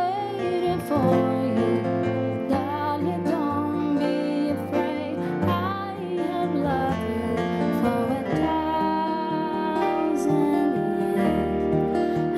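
Music: a woman singing a slow melody with wavering, sliding notes over long held chords from accompanying instruments.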